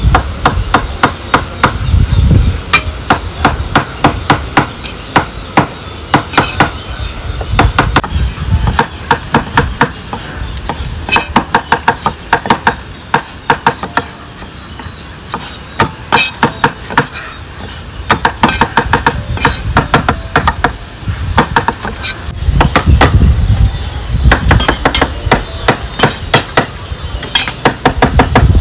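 Rapid runs of hard, sharp strikes in kitchen food preparation, several a second, with short pauses between runs.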